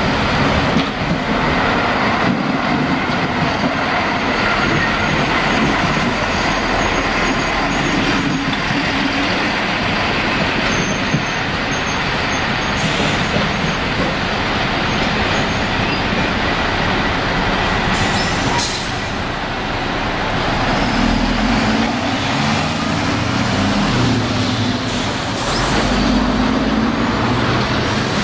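Diesel engine of a NordWestBahn Talent railcar running as the train rolls slowly by, with the rumble of its wheels on the track. In the last several seconds the engine note wavers up and down in pitch.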